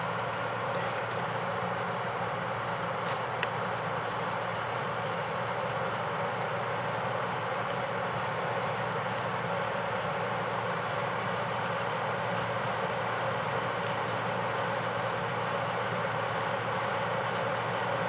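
Diesel harvest machinery running steadily, a continuous even drone with a steady hum, and one faint click about three seconds in.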